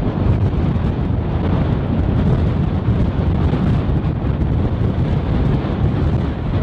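Strong storm wind buffeting the microphone: a steady, loud rushing noise, heaviest in the low end.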